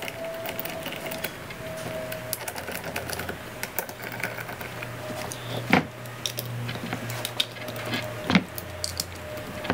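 Hand tool screwing engine-mount bolts into a kart engine: a run of small, light clicks and taps, with two sharper knocks about six and eight and a half seconds in. A low steady hum sits under the middle part.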